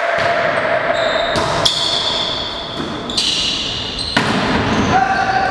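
Indoor volleyball rally in a large echoing sports hall: the ball being struck and bouncing, with players' shoes and scattered voices.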